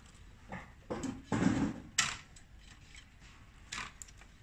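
Plastic cable connectors being unplugged from a printer mainboard: a handful of sharp clicks and knocks with the rustle of cables being handled, the loudest knock about a second and a half in.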